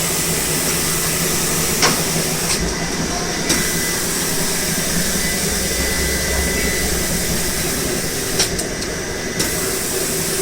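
Adhesive-tape roll cutting machine running with a steady hiss and hum, with two sharp clicks about six seconds apart.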